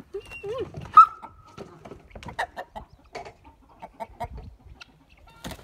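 Chickens calling: a sharp, loud squawk about a second in that holds briefly, then a run of short clucks.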